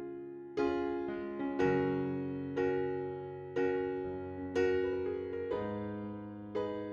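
Background music: soft electric piano chords struck about once a second, each fading before the next.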